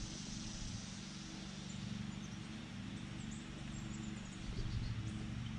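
Quiet outdoor river ambience: a steady low hum and hiss, with a few faint high chirps about three seconds in.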